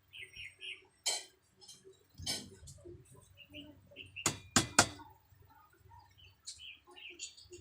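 Scattered clicks and knocks of hand work on a chair repair, with two sharp knocks in quick succession about four and a half seconds in and a few faint squeaks.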